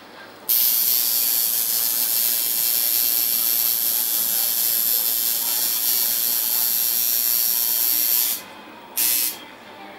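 Tattoo machine buzzing steadily as the needle works ink into the skin. It stops about eight seconds in and runs again in a short burst a second later.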